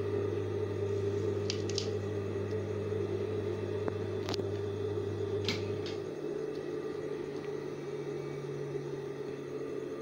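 Steady electric motor hum with a few light clicks, its note changing about six seconds in.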